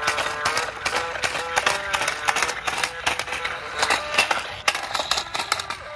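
Dancing toy tractor playing its tinny electronic tune, with many sharp clicks running through the music as it dances.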